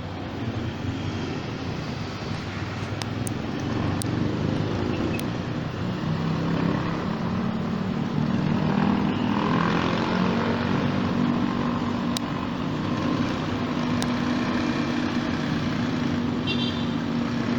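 Street traffic: a motor vehicle's engine running close by, its pitch creeping slowly upward over a steady traffic hum, with a few sharp clicks.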